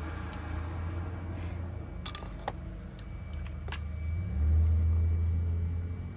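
Small metal clicks and taps of Honda door lock cylinder parts and a key being handled, a few separate clicks with the sharpest about two seconds in, over a low steady hum; a louder low rumble swells about four seconds in and fades near the end.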